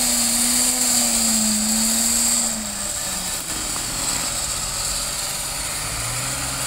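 Off-road 4x4's engine revving hard as the vehicle struggles stuck in deep mud. The revs fall away about two and a half seconds in, and the engine runs on lower and quieter.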